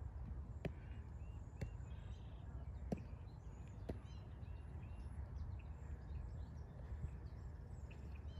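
Outdoor ambience of birds chirping over a low steady rumble, with four sharp clicks in the first half.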